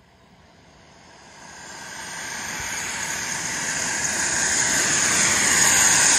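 Pilot RC Viper 1.8 model jet on its takeoff roll: the engine's jet rush swells steadily from faint to loud as the jet speeds along the ground toward the microphone.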